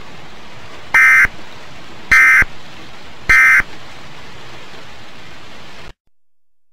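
Weather-radio Emergency Alert System end-of-message data bursts: three short buzzing digital bursts about a second apart over steady radio hiss, which cuts off abruptly near the end.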